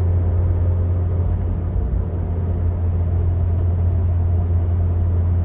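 A 2010 Ford Focus RS being driven, a steady low drone over road noise that holds one even pitch.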